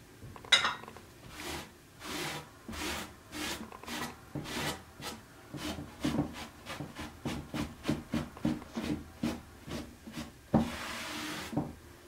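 Hand sanding with 120-grit sandpaper over dried drywall compound on a wooden drawer front: rapid back-and-forth scraping strokes, about two to three a second, knocking off the rough edges of the raised stencil pattern. Near the end there is one longer, continuous rub.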